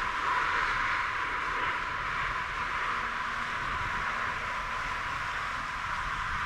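Jet airliner engines on final approach: a steady rushing noise that holds at an even level.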